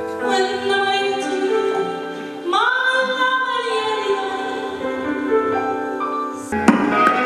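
A woman singing long held notes over sustained accompaniment. About six and a half seconds in the music changes abruptly to a busier passage with struck percussion.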